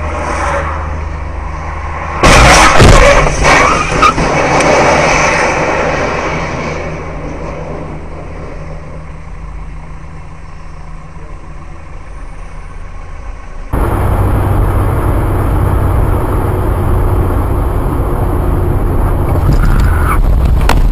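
Dash-cam recording of a car's engine and road noise, broken about two seconds in by a loud crash impact that lasts a couple of seconds before fading back to road noise. About fourteen seconds in, it cuts abruptly to louder, steady road and engine noise from another vehicle.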